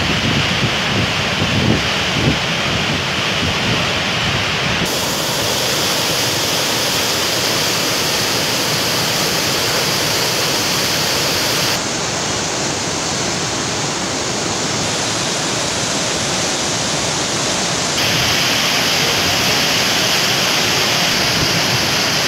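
Rain-swollen river floodwater rushing past bridge piers: a loud, steady rushing noise that shifts abruptly in tone a few times.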